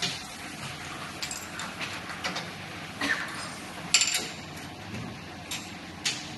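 Scattered metal clinks and knocks as steel collets, a collet nut and hand tools are handled on a collet test stand, the sharpest knock about four seconds in. A steady workshop hum runs beneath.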